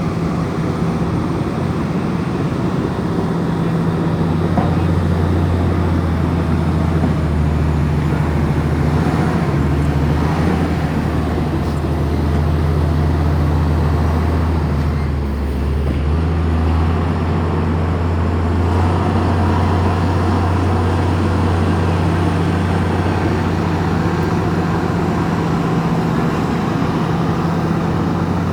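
Komatsu bulldozer's diesel engine working, a steady low drone that dips briefly about fifteen seconds in and then picks back up.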